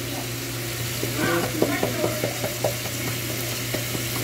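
Shrimp simmering in a butter and pineapple-juice sauce in a frying pan, a steady sizzle over a low hum. Between about one and three seconds in comes a run of quick light taps and clicks as a garnish is shaken over the pan.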